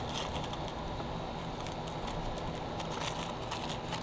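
Steady background hum with a few faint light clicks, typical of small items being handled.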